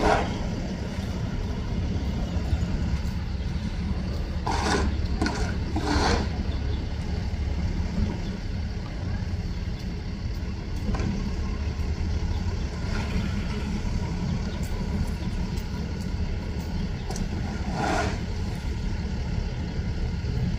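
Car engine idling: a steady low hum, heard from inside a car. A few short, louder sounds come over it about five, six and eighteen seconds in.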